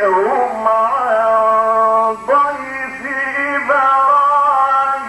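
A man's voice chanting Quranic verses in a slow, melodic recitation style, long notes held and ornamented with wavering turns. Two long phrases, the second starting just after two seconds in.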